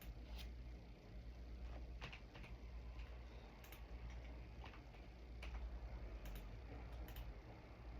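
Faint, sparse clicks of computer keys at irregular intervals, about one a second or less, over a low steady hum.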